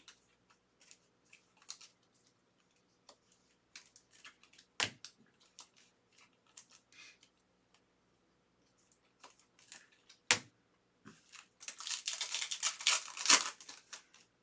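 Trading-card pack wrapper being torn open and crinkled, with scattered light clicks and two sharp taps as the cards are handled; the loudest crinkling comes near the end.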